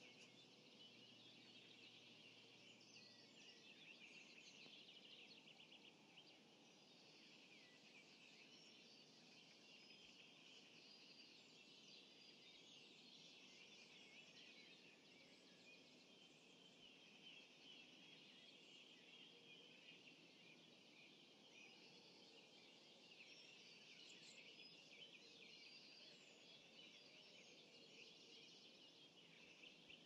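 Faint dawn chorus of many birds singing at once, a dense, continuous twittering with no single call standing out.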